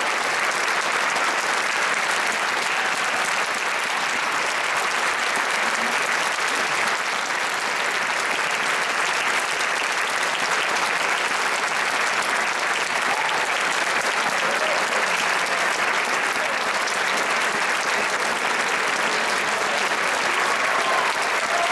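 Concert audience applauding steadily, a dense, even clapping from a full hall.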